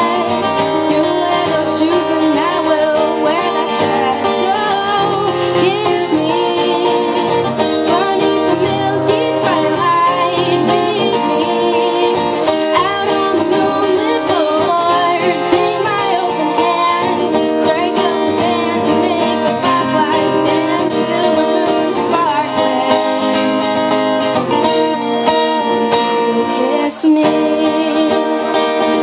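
Acoustic guitar playing with a woman singing over it, a small live acoustic duo.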